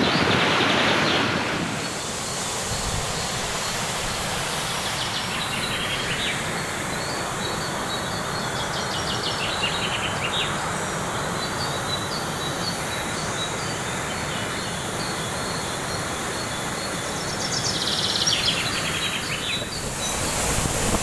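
Steady rush of a waterfall's falling water, with high chirping calls over it that are strongest near the start and again near the end.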